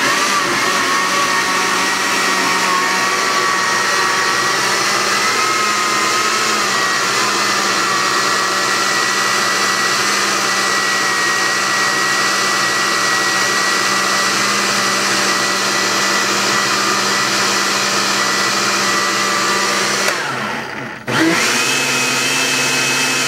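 Countertop blender motor running steadily with a whine as it blends spinach, orange and mango into a thick green smoothie. About twenty seconds in it cuts out briefly, then starts again with a higher-pitched whine.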